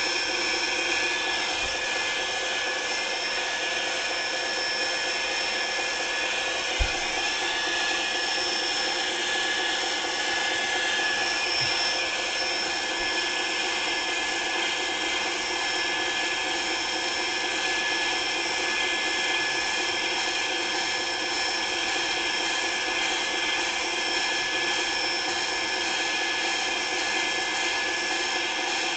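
A machine running steadily, a constant hum and whine with several fixed high tones that never change, with one short knock about seven seconds in.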